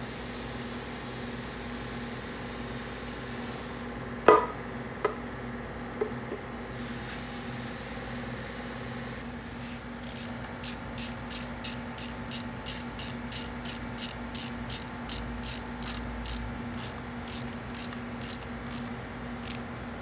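Hand-tool work on a Sea-Doo Spark engine under rebuild: a few sharp metal clinks, then about ten seconds of quick, even clicking, around three clicks a second.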